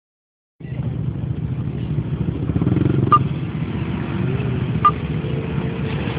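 ATV engine running at low speed as the four-wheeler rolls toward a mud hole, starting about half a second in. Two short sharp clicks are heard about three and five seconds in.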